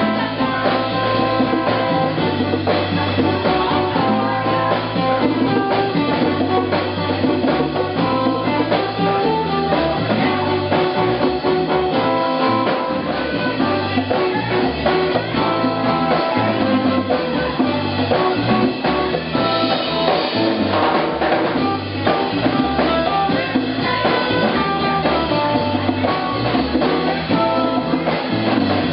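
Live band music: a ukulele played with bass guitar and drum kit, keeping a steady beat.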